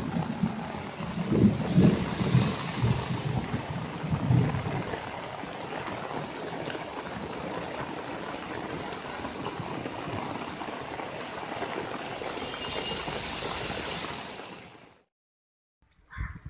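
Heavy rain falling, a steady hiss of rain with some low rumbles in the first few seconds; it fades out near the end.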